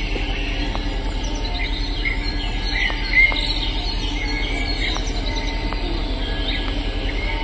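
Bird calls and insect chirring, with short repeated chirps and one louder call about three seconds in, over a steady low hum.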